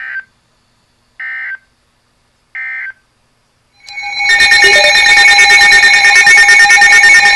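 Emergency Alert System end-of-message data tones: three short identical warbling bursts about a second and a half apart, closing the severe thunderstorm watch. About four seconds in, a loud continuous electronic alert tone begins, the start of the next alert.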